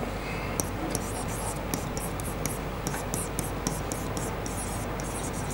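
Pen strokes on an interactive whiteboard: a quick run of short, high, scratchy strokes as a word is written out by hand.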